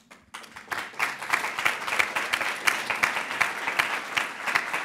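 Audience applauding, a dense patter of clapping that starts just after the opening and fills out about a second in, then carries on steadily.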